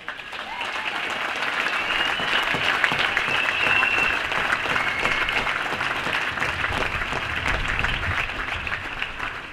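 Large crowd applauding after a speech. The clapping swells in the first second and slowly dies away near the end.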